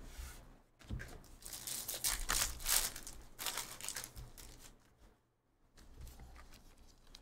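A foil trading-card pack being torn open, its wrapper crinkling, and the cards sliding against each other as they come out. It sounds as a string of short rustles and tears, then goes quiet for a moment about five seconds in.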